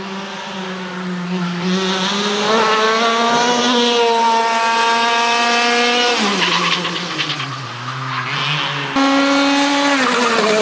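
Racing kart engine running at speed, its note climbing steadily as the kart accelerates. About six seconds in it drops sharply. The engine comes back loud and high about nine seconds in and falls again near the end.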